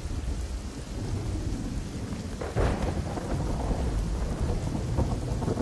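Heavy rain pouring down, with a deep steady rumble underneath. The sound swells louder about two and a half seconds in.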